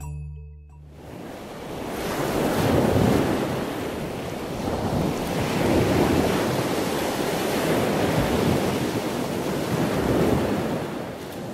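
Ocean surf: a steady rush of breaking waves that swells and eases every few seconds.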